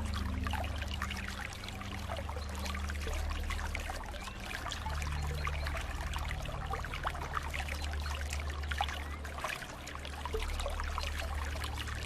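Water flowing and trickling steadily, with many small splashes and bubbling sounds.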